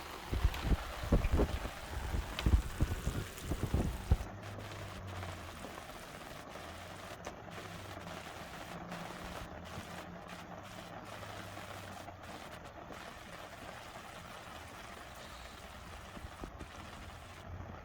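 An egg and vegetable dish sizzling steadily in a pan. A run of dull knocks comes in the first four seconds, then the sizzle goes on alone.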